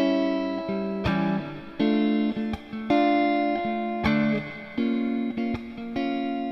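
Solo electric guitar playing a slow chord progression: a chord strummed about once a second and left to ring and fade, with light strokes in between.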